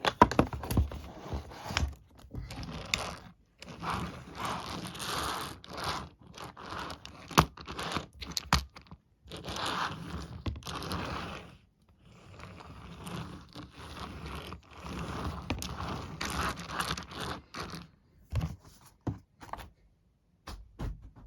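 Toy train packaging being opened by hand: irregular bursts of scraping and crinkling with sharp clicks.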